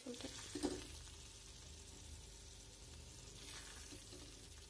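Wooden spatula scooping thick tamarind curry out of a kadai: faint, with a few soft scrapes, the clearest two in the first second.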